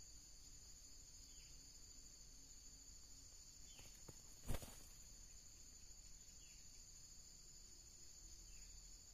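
Steady high-pitched insect buzzing, with faint short chirps every couple of seconds and a single sharp click about halfway through.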